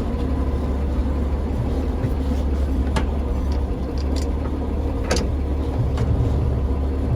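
The 1956 Dodge Town Panel's engine running steadily, during a test of a freshly adjusted clutch pedal, with two sharp clicks about 3 and 5 seconds in and a slight rise in engine note near the end.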